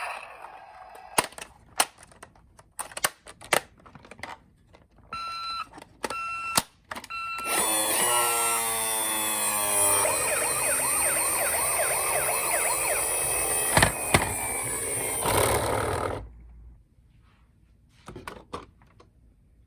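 Toy ambulance minicars' electronic sirens: scattered plastic clicks and a few short beeps, then many toy sirens sounding together and overlapping for about eight seconds before cutting off suddenly.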